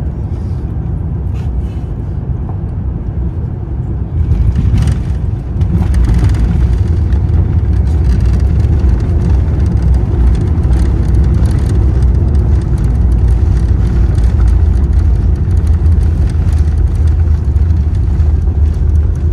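Low, steady rumble of an airliner heard from inside the cabin, growing louder about four seconds in and again about six seconds in.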